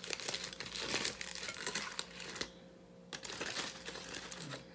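Aluminium foil crinkling and rustling as a foil-wrapped baked sweet potato is handled and pulled open, in two spells with a short pause between them.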